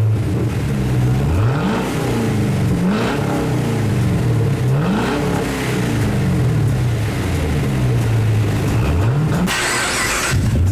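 Chevrolet Camaro engine idling through an aftermarket exhaust with the resonator replaced by an X-pipe. It is blipped up in revs and back down about four times.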